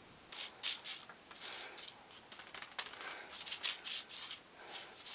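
A folded sheet of paper rustling and scraping in irregular short strokes as stone-imitation granulate is tipped from it into a crack in a wood blank.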